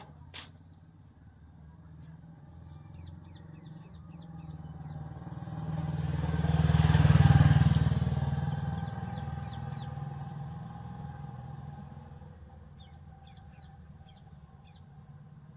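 A motor vehicle passing by: its engine grows louder, peaks about seven seconds in, then fades away.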